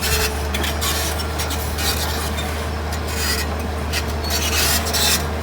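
Excavator engine running with a steady low drone, under repeated harsh scraping and crackling bursts, about five of them, as it works through brush.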